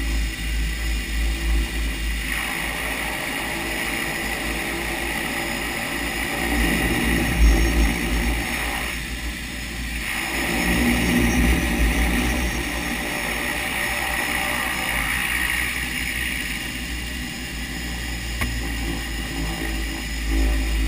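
De Havilland Canada DHC-6 Twin Otter floatplane's turboprop engines running at taxi, heard from the cockpit, with a deep steady rumble; a higher whine comes and goes a few times.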